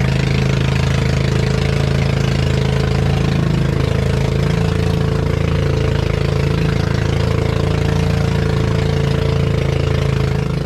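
Small fishing bangka's engine running steadily as the boat travels across open sea.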